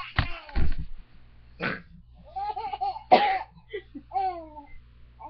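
Baby laughing in short high-pitched squeals and giggles, broken by a few sharp breathy bursts.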